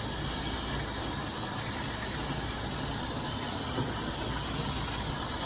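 Kitchen sink faucet running with a steady, even hiss of water while hands are washed under it.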